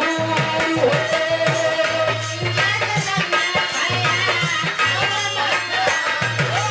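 Bhojpuri birha folk song: a male voice holds one long note for about two seconds, then carries on the melody, over a steady beat of hand drums.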